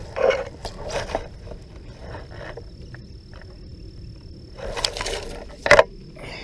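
Footsteps and rustling through grass and brush, in two short spells, with a sharp click near the end.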